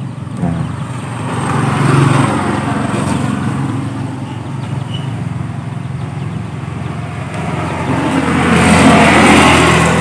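A motor vehicle's engine running steadily. It grows louder about two seconds in and again near the end.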